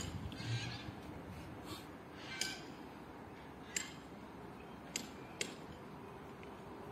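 Quiet background with a few faint, short, sharp clicks spaced a second or so apart.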